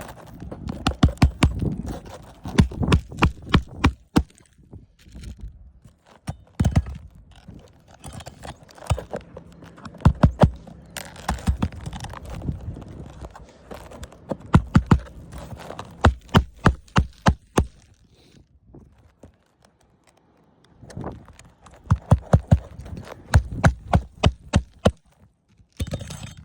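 Hammer driving nails into a roof shingle, in runs of several quick blows with short pauses between them.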